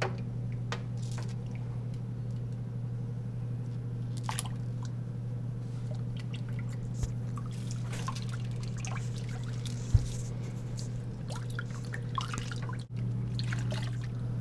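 Water splashing and dripping in a stainless steel kitchen sink as hands wash a baby capuchin monkey sitting in the bathwater, over a steady low hum. A single sharp thump about ten seconds in.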